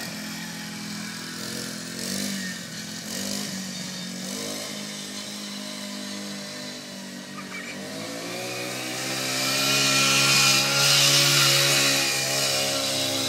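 Small petrol engine of a motorised esky (drinks cooler) running as it is ridden. From about eight seconds in it rises in pitch and gets louder as it speeds up.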